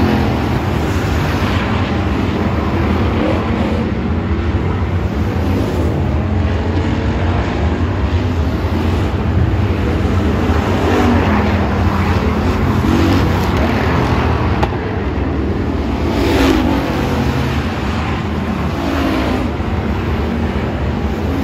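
Several hobby stock race cars running laps on a dirt oval. The engine noise is loud and continuous, and it swells and falls in pitch several times as cars pass close by.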